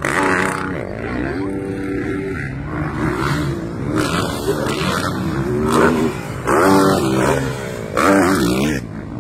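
Motocross dirt bike engines revving up and dropping off in repeated surges, about every second or so, as bikes come one after another over a jump.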